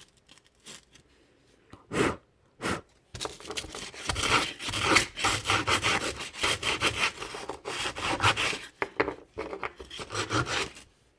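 Sandpaper rubbed back and forth by hand on a part of a Goatguns SVD Dragunov miniature model gun, scuffing its finish for a worn look. A couple of separate strokes come first, then fast, continuous strokes that stop near the end.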